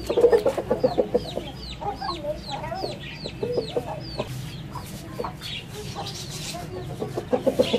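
Chickens clucking, over a steady run of short, high chirping calls, about two or three a second.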